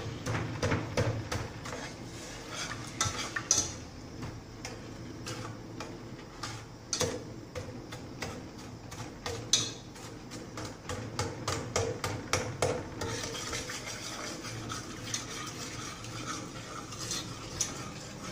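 Metal spoon stirring in a stainless steel pot, scraping and clinking against its sides and bottom many times over.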